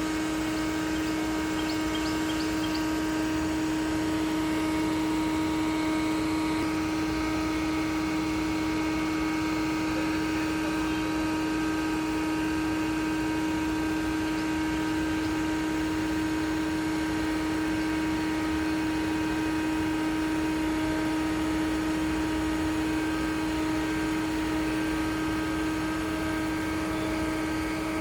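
Concrete pump's engine running at a constant speed, a steady unbroken drone with a strong hum.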